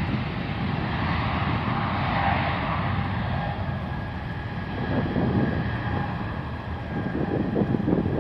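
Swiss Airbus A220-100's geared turbofan engines running steadily as the airliner moves on the runway ahead of its takeoff roll: a faint steady whine over a low rumble.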